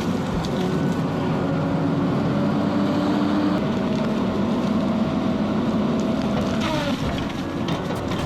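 Engine of a tree-cutting machine running steadily under work, with a steady whine over the engine note that drops in pitch about seven seconds in.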